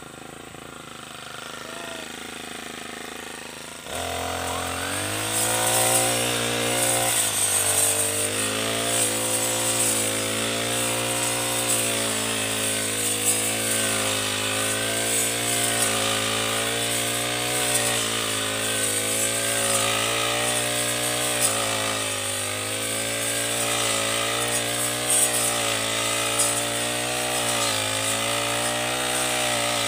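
Four-stroke backpack brush cutter with a round metal blade. After a quieter start, the engine revs up about four seconds in and runs at high speed, its pitch dipping and rising as the blade cuts through tall grass.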